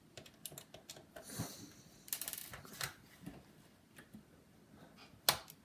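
Small scattered clicks and ticks of a precision screwdriver backing two small screws out of a laptop's plastic case, with one sharper click about five seconds in.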